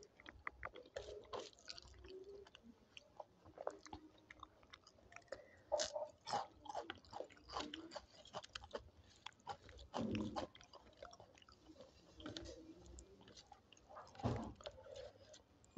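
A person eating dal, rice and papad close to the microphone: chewing with many small sharp mouth clicks, and louder clusters of crunchy bites about six, ten and fourteen seconds in.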